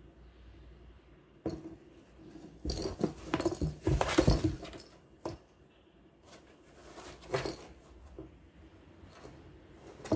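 A Birman-mix cat rolling over and shifting inside a cardboard box: a few bursts of scraping and bumping against the cardboard, the loudest a few seconds in, with the small plastic ball toy on a string jostling now and then.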